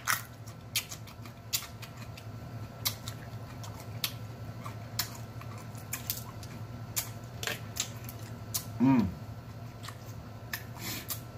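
Eating sounds: irregular sharp clicks and cracks as snow crab legs are broken open and picked and food is chewed, with a short 'mm' moan with a falling pitch about nine seconds in.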